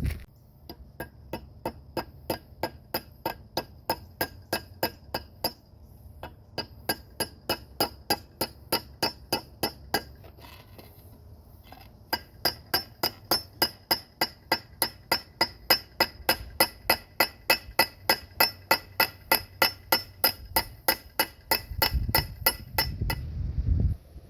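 Background music with a bright, bell-like plinking beat at about three notes a second, pausing briefly about ten seconds in and picking up again louder.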